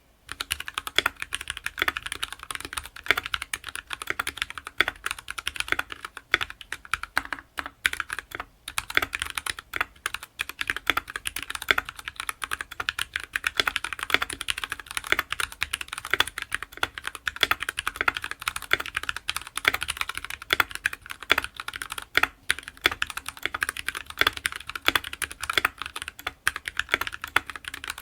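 Typing on a GK61X 60% mechanical keyboard with lubed Gateron Red linear switches: a dense, fast, unbroken run of keystrokes.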